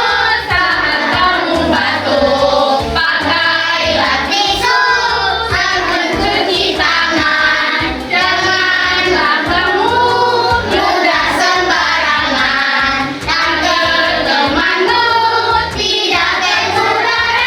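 A group of children singing a song together, with music.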